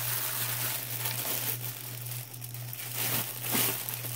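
A large clear plastic bag, packed with smaller bags of diamond painting drills, crinkling and crackling as hands press, squeeze and move it. The crackling comes in uneven bursts and is strongest about three seconds in.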